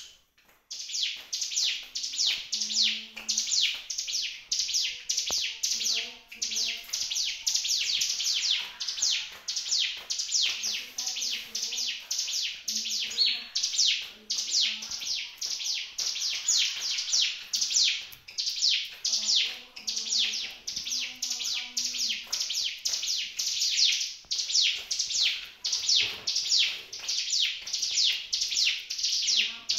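Ciblek gunung, a small caged prinia, singing a long, unbroken run of quick, high, downward-slurred notes, about three or four a second.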